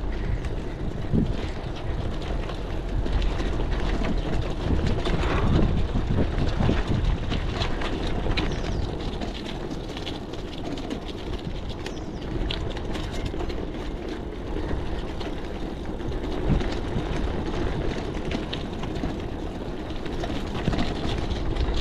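Oggi Velloce gravel bike rolling over a stony road: its low-pressure tyres rumble and the bike rattles with many small, irregular knocks.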